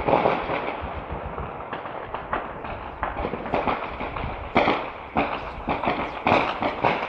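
Gunfire: a dense, irregular crackle of many shots that starts suddenly and keeps going, with a few louder cracks in the middle and near the end.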